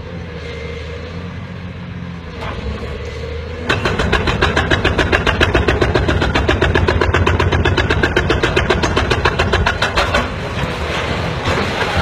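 Heavy machinery's engine running steadily. About four seconds in, a much louder fast, even mechanical clatter begins, which gives way to a rougher rumble near the end.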